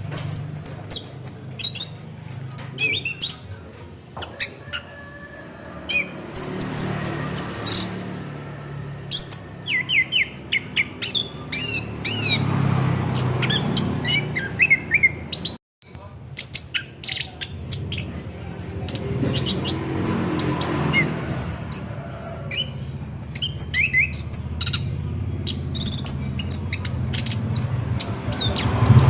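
Orange-headed thrush singing a continuous, rapid run of varied whistles, chirps and glides. The song breaks off in a brief silent cut about halfway through, over a low background hum.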